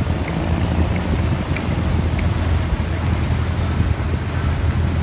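Tour boat's engine running steadily with a low drone, mixed with wind buffeting the microphone and water rushing from the boat's wake.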